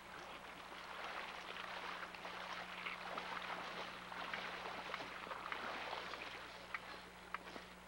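Shallow river water sloshing and splashing around wading anglers' legs, with a hooked chinook salmon thrashing at the surface: many short splashes over a steady wash of water.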